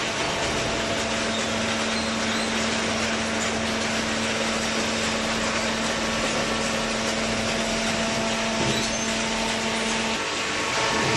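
Hydraulic cardboard baler running, its motor and pump giving a steady mechanical whir with a hum that shifts about ten seconds in.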